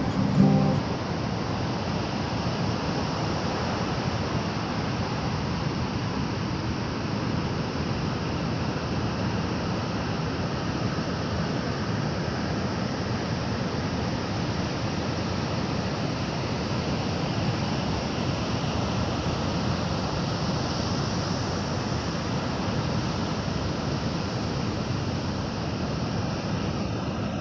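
Ocean surf breaking on the beach in typhoon-driven swell, heard as a steady rush with wind on the microphone. A strummed acoustic guitar song cuts off just under a second in.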